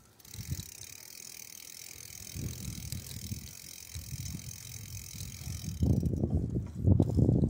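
Bicycle riding along a paved path: wind buffeting the microphone as an uneven low rumble over a steady hiss from the tyres and air. The buffeting gets louder about six seconds in.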